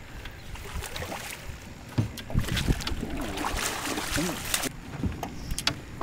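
Hooked channel catfish being brought to the boat and lifted aboard. About two seconds in comes a burst of water splashing and knocking that lasts a couple of seconds, followed by a few sharp clicks of handling.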